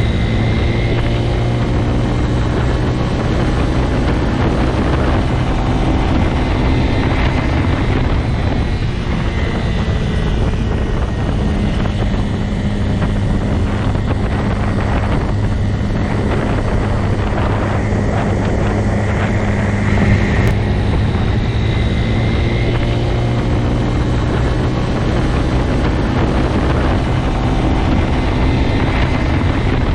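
Motorcycle engine running at a steady speed, an even drone that holds its pitch with little change.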